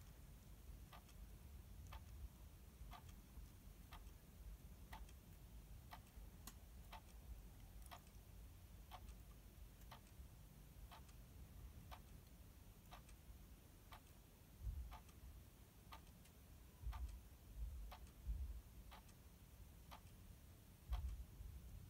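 Faint ticking of a clock, evenly about once a second, with a few brief low rumbles in the second half.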